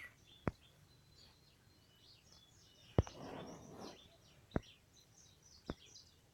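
Faint birds chirping in the background, broken by a few sharp clicks. The loudest click comes about halfway through and is followed by a brief rustle.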